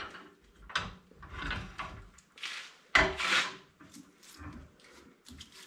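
Knocks and scraping of a Jet lathe's tool rest and banjo being repositioned by hand, metal parts sliding and clunking against the lathe bed and the wood blank, with the sharpest knock about three seconds in.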